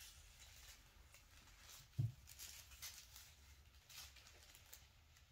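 Faint rustles and light scratches of kittens pawing at a feather-and-foil wand toy on a duvet, with one dull thump about two seconds in.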